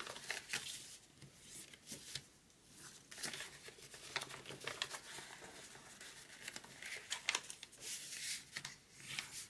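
A sheet of heavily creased paper rustling and crinkling as it is flexed and folded by hand along its existing creases, in short, irregular crackles.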